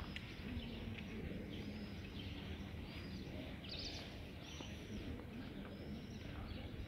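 Small birds chirping with many short, repeated high calls over a low, steady background rumble.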